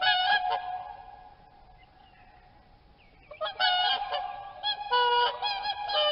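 Swans calling with honking calls: a short cluster of honks right at the start, then a longer run of repeated honks from about three seconds in.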